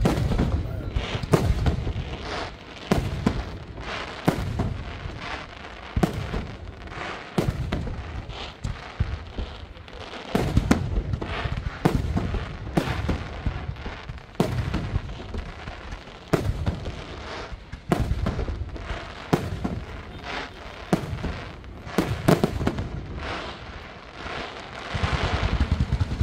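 Fireworks display: aerial shells bursting in a run of sharp bangs about once a second, each trailed by a low rumble. Near the end the reports come much faster, in a rapid volley.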